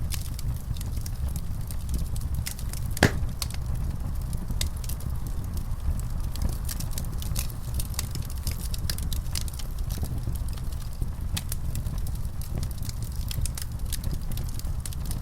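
Wood fire in a fireplace crackling, with frequent sharp pops scattered through over a steady low rumble; one louder pop about three seconds in.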